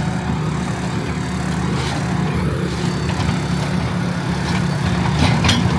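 Tractor engine running steadily with a dense low hum and a constant wash of mechanical noise.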